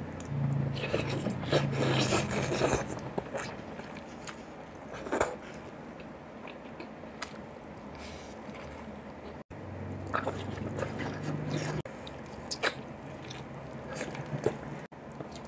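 Close-up eating sounds of a man eating beef nilaga by hand: chewing, lip smacks and small clicks as he eats beef and rice. A low hum comes twice, early on and again past the middle. Near the end he sucks at a beef shank marrow bone.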